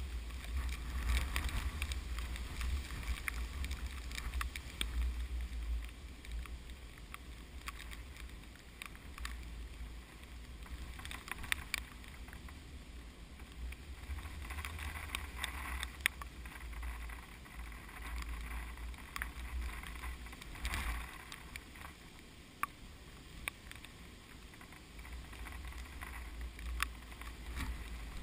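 Strong typhoon wind buffeting the microphone in gusts that rise and fall, with a rustling, crackling hiss of wind-blown plants and many small clicks.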